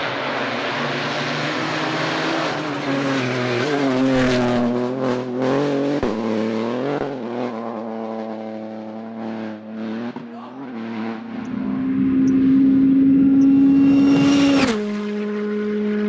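Rally car engine at speed, the revs rising and falling again and again as it works through the gears and passes, then held high and steady for a few seconds. Near the end the sound changes abruptly to another rally car's engine running steadily.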